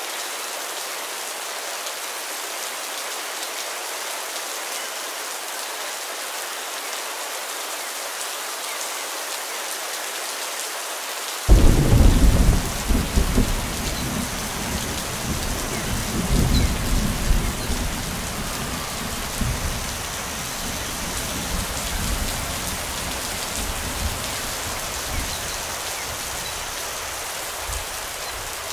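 Steady rain falling. A little before halfway, a sudden loud crack of thunder breaks in and rolls on as a deep rumble, swelling again a few seconds later before fading back under the rain.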